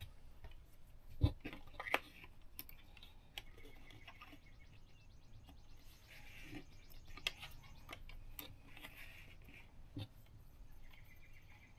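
Faint hand-work noise as the wires of an RV propane detector are reconnected: scattered small clicks and knocks, a short run of fine rapid ticking, and soft rustling.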